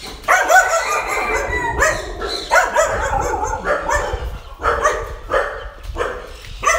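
Phu Quoc ridgeback dogs barking and yelping over one another in repeated short calls, with a rooster's crow among them.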